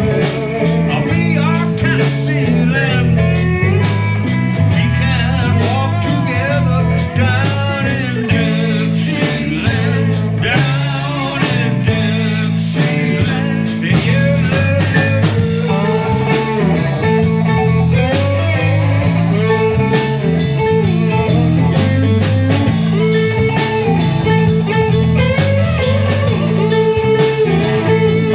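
A live bar band playing a blues-rock groove on electric guitars, bass guitar and drum kit, with a steady beat and a repeating bass line.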